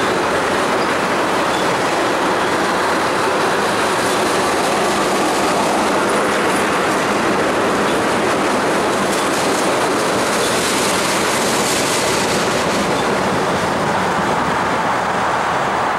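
Freight train of tank cars rolling past, a steady rumble of steel wheels on rail with clickety-clack over the joints.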